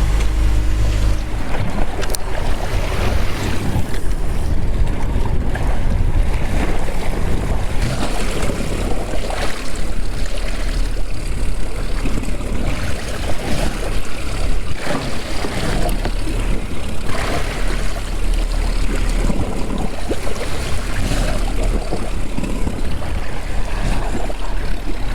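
Boat motor running at slow trolling speed, a steady low rumble, with wind and water noise over it.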